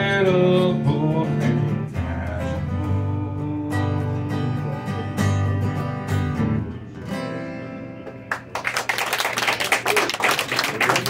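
Man singing a drawn-out final note over a strummed acoustic guitar, the last chords ringing out and fading as the song ends. About eight and a half seconds in, the audience breaks into applause.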